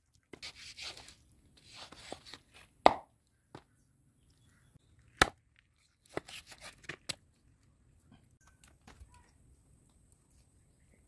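Large kitchen knife cutting a raw pig's foot on a wooden chopping board: short rasping slices through skin and meat, and a few sharp chops striking the board, the loudest about three and five seconds in.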